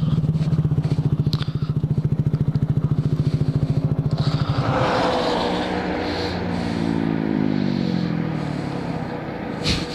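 2014 Honda Grom's single-cylinder engine idling with an even, quick pulse. About halfway through, a rushing noise rises and other engine notes slide down in pitch, as of passing traffic. A sharp knock comes near the end.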